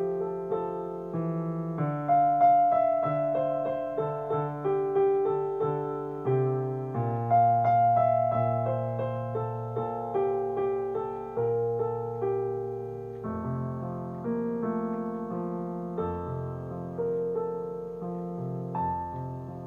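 Slow piano music: a melody of single struck notes and chords over held bass notes, each note ringing and fading, with the playing gradually getting quieter.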